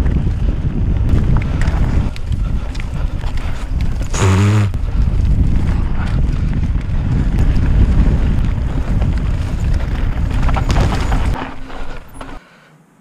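Wind buffeting an action camera's microphone and a mountain bike rattling over a dry dirt singletrack. There is a short shout about four seconds in. The noise falls away shortly before the end.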